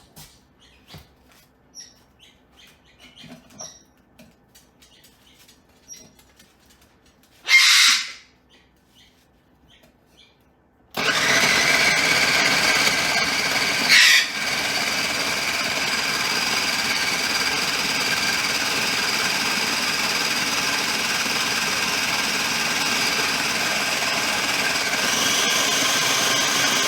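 Countertop blender switched on about 11 seconds in and running steadily with a high whine, chopping day-old bread into breadcrumbs. Before that there are only small clicks of handling and one short, loud burst of noise about 8 seconds in.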